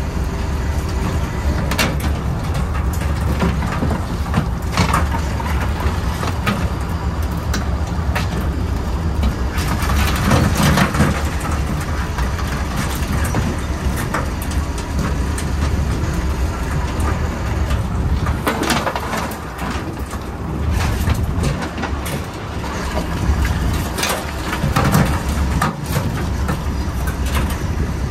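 Crab work boat's engine running steadily, with water rushing along the hull. Over it, scattered clanks and rattles of wire crab pots being handled and emptied.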